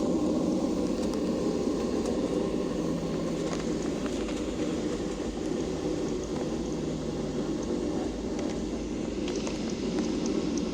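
Steady cabin drone inside a Boeing 737-800, the engines and air conditioning giving an even low rumble with a faint steady hum and a few light clicks.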